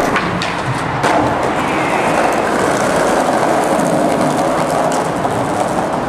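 Skateboard wheels rolling over rough concrete in a steady rumble, with a sharp clack of the board near the start and another about a second in.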